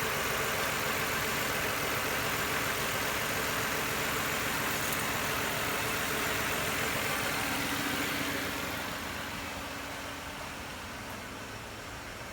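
2008 Nissan Maxima's 3.5-litre VQ V6 idling steadily, growing quieter near the end.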